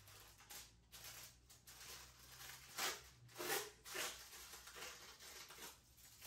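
A new box of aluminum foil being opened and handled: the cardboard and foil rustle and crackle in a run of short, scratchy bursts, the loudest about three to four seconds in.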